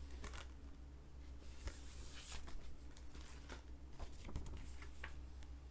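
Faint rustling and crinkling of a paper poster insert being handled and turned over, over a low steady hum.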